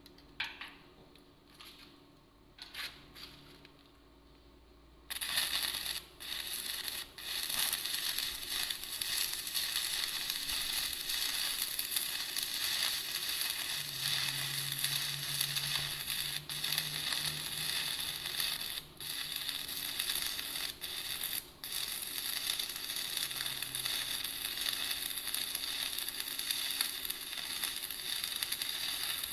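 Electric welding on a car chassis. A few light clicks, then about five seconds in a steady crackling sizzle starts and runs on, broken by a few short pauses where the arc stops.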